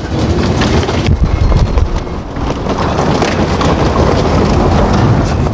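A car driving, with steady road rumble and wind noise heard from inside the cabin.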